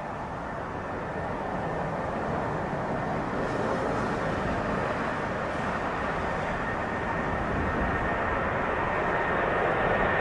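Boeing 747 jet engines at takeoff power: a steady rumbling roar that grows slowly louder, with a thin high whine coming up toward the end.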